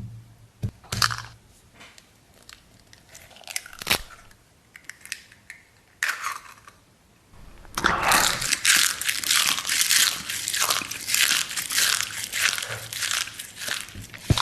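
Close-miked eating: a few separate bites and clicks, then from about eight seconds in, continuous loud crunchy chewing.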